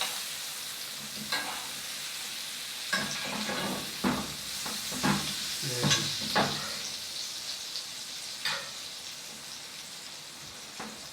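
Filet mignon steaks sizzling steadily in butter and rosemary in a hot pan after searing, with several short knocks of a utensil against the pan.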